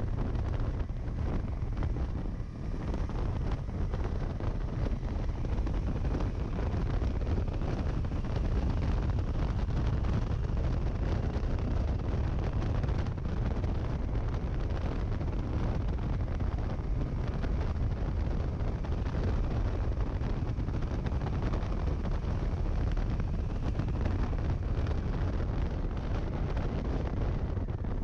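Steady rush of wind buffeting the action camera's microphone as a KTM 390 Adventure motorcycle rides along at speed, the wind noise masking the engine.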